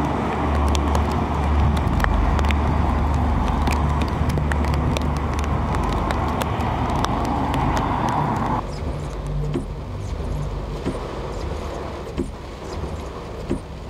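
Wind buffeting the microphone as a thunderstorm moves in, a steady low rumble, with road traffic going by. About nine seconds in, the sound cuts abruptly to quieter wind noise with scattered taps.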